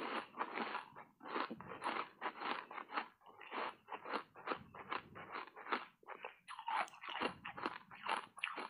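Close crunching of matcha-powder-coated foam ice being chewed, about three or four crunches a second.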